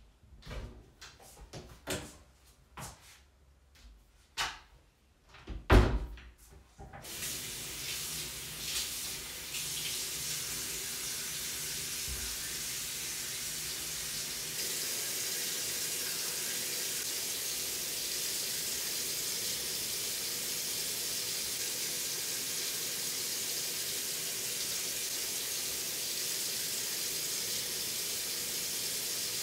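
A few clicks and knocks with one loud knock about six seconds in, then a bathroom sink tap turned on and running steadily, with the water getting a little louder about halfway through.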